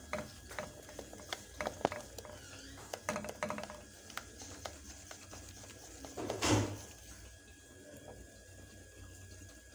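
Wooden spoon stirring thickening egg custard in a metal saucepan, tapping and scraping against the pan in quick irregular clicks for the first few seconds. A louder half-second rush of noise comes about six and a half seconds in, then the stirring goes quieter.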